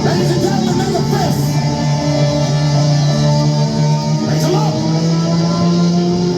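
Hard rock band playing live and loud, electric guitars to the fore, with sustained and bent notes.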